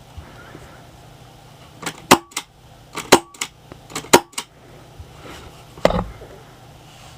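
Marzen P99FS gas-blowback airsoft pistol fired three times about a second apart, each shot a quick cluster of sharp clicks. A heavier knock follows near the end.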